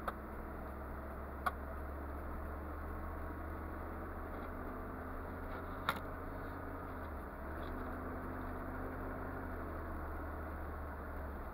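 Car running along the road heard from inside the cabin: a steady low engine and road hum, with a sharp click right at the start, another about a second and a half in, and a louder one near the middle.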